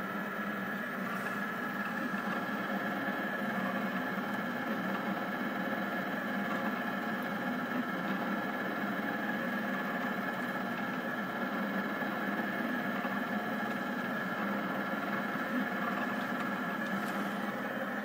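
Rostock delta 3D printer running mid-print: a steady mechanical hum and whine from its stepper motors and cooling fans, several tones held throughout.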